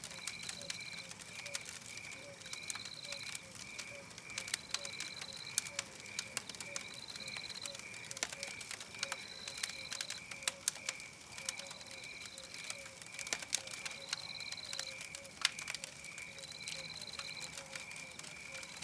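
Campfire crackling, with irregular sharp pops that are the loudest sounds. Under it runs a night-forest background: a steady, even chirping about three times a second, a higher trill of about half a second that repeats roughly every two seconds, and a low pulsing call.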